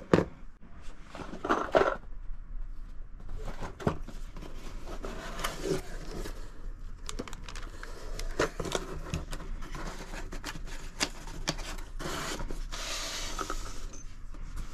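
Handling noise as a cardboard gun box is opened and a handgun is lifted out: scattered clicks, knocks and scraping of metal and cardboard, with a sharp knock at the start and a stretch of rustling about two seconds before the end.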